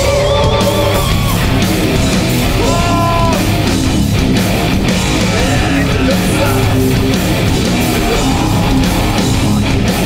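Metallic hardcore band playing live at full volume: heavy distorted electric guitars over bass and drums, with some bending guitar notes sliding in pitch.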